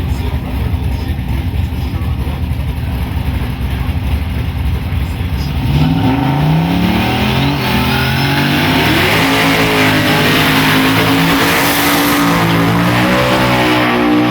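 Drag-racing street cars at the line with engines rumbling, then about six seconds in a hard launch down the strip, the engine note climbing and stepping down through several gear shifts and staying loud to the end.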